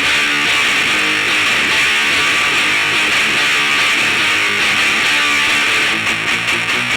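Heavily distorted electric guitar strumming a grunge-punk riff in drop D tuning, a dense wall of distortion that turns choppier about six seconds in.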